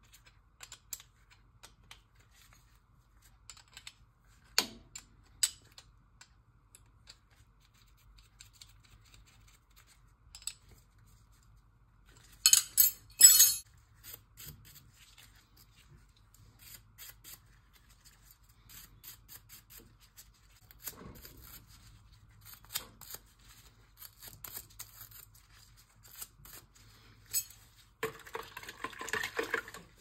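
Scattered metallic clicks and clinks of a wrench and small brass parts being handled while an oil burner's nozzle and electrode assembly is taken apart and cleaned. There is a loud quick rattle of clicks a little before halfway, and a rustling rub near the end.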